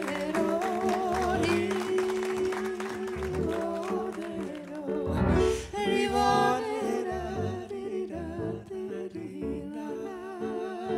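Live singing: a voice sings a melody with wide vibrato over steadily held accompaniment notes. There is a short low thump about five seconds in.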